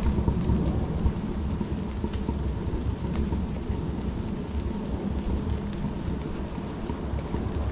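Steady rain falling in woodland, with a heavy low rumble underneath.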